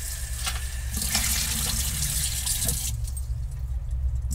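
Tap water running into a small stainless steel saucepan of broccoli florets being rinsed in the sink, with a faint clink or two of the pan; the water stops about three seconds in. A low steady hum runs beneath.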